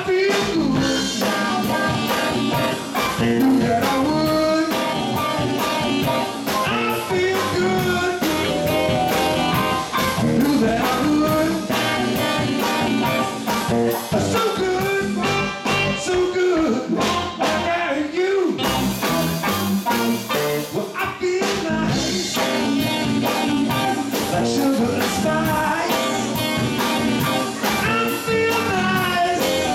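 Live band playing a bluesy, upbeat number with a steady drum beat: saxophone lead over electric guitar, bass guitar and drum kit.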